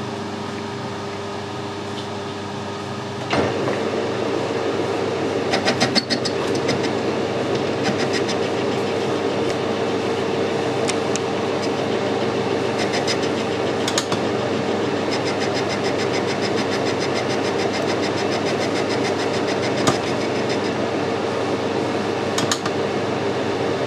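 Metal lathe running, an insert tool turning a pin between chuck and tailstock centre. About three seconds in the cut takes hold and the sound turns louder and noisier, with scattered sharp clicks of chips breaking off.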